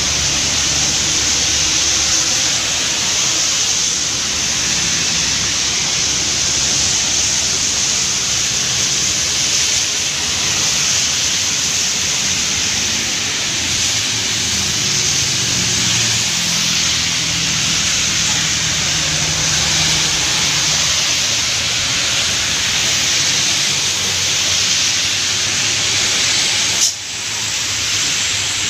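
Heavy rain falling steadily, a loud even hiss, with traffic passing on the wet road beneath it. One sharp click near the end.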